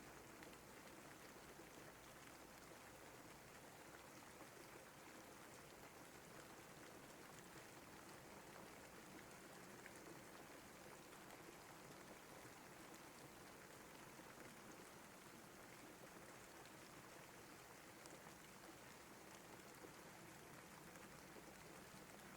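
Steady rain, faint and even, a soft hiss with scattered small drop ticks.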